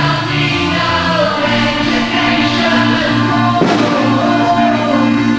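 Music with singing: a song with held bass and chord notes and a voice over it.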